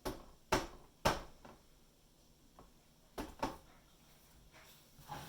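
A few short, light knocks as a small painting canvas is handled and tilted on the work surface: three in quick succession, then a pair about three seconds in and a softer one near the end.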